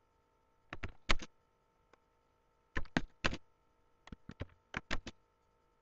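Typing on a computer keyboard: three short runs of keystrokes with pauses between them.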